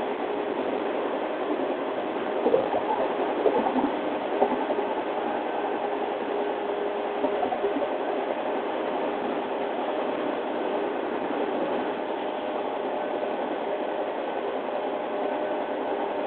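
JR East 113 series electric train running at speed, heard through an open window of its motor car: a steady rush of wheels on rail and wind, with the even hum of its DC traction motors. A few louder clatters come about three to four seconds in.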